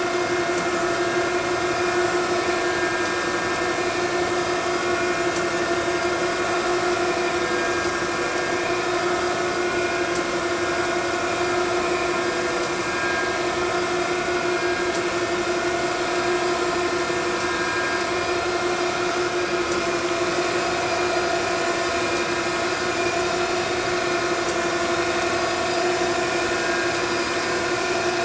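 Okamoto 1224 surface grinder running: a steady, constant machine hum with a held tone, unchanging throughout.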